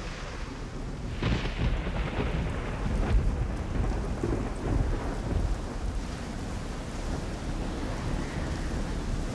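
Rain with rolling thunder: a deep rumble swells about a second in and eases off over the next few seconds, over a steady wash of rain.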